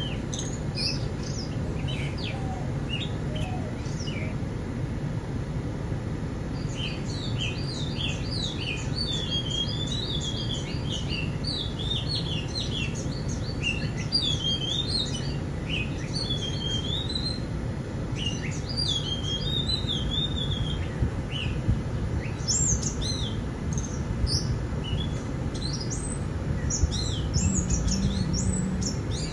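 Wild birds chirping and singing in quick runs of warbling notes, busiest in the middle, over a steady low rumble.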